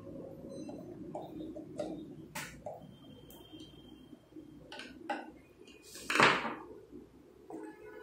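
Screwdriver and door-latch hardware being handled: scattered light clicks and metal taps as the latch faceplate screws are driven, with one louder scraping rustle about six seconds in.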